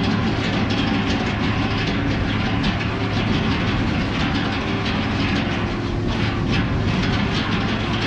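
Casagrande rotary piling rig running: a steady diesel engine hum under a continuous metallic clatter and rattle.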